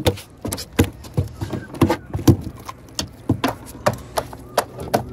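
A freshly landed bass flapping on the boat's bow deck, its body slapping and knocking against the deck in quick, irregular thumps, about two to three a second.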